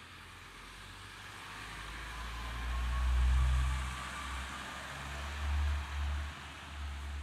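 A motor vehicle passing on a rain-wet street: a low engine rumble swells to its loudest about three seconds in and then eases, over a steady hiss.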